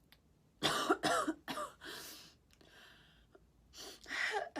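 A woman coughing with a cold: three quick coughs in a row about half a second in, a breath drawn in after them, and another throaty burst near the end.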